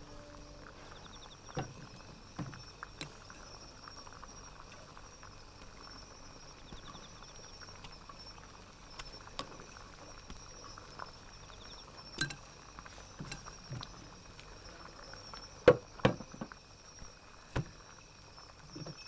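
Scattered light clinks and knocks of kitchenware being handled: a lid lifted off an iron pot, a utensil in the pot, dishes set down on a wooden table. A couple of sharper knocks come near the end, over a faint steady high-pitched tone in the background.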